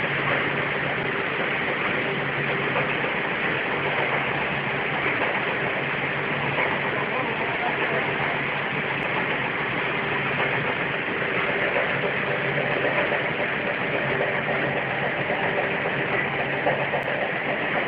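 Snack production-line machinery running steadily: an even mechanical whir with a constant low hum from the dough sheeting and cutting machines.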